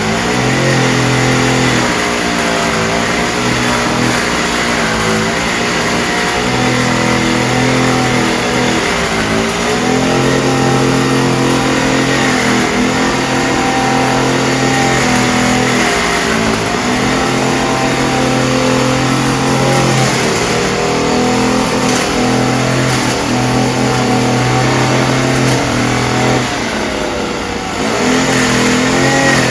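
Engine of a disinfection spraying machine running with a steady drone, its pitch wavering up and down. The level drops briefly near the end, then comes back.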